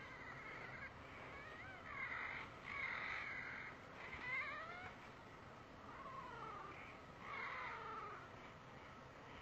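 Animal cries: about five wavering calls that rise and fall in pitch, each under a second long, over a low background.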